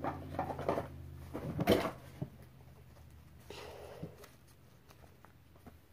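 Small plastic toys and doll clothes being handled and sorted: rustling and light clicks, with one louder knock a little under two seconds in and a short rustle around three and a half seconds.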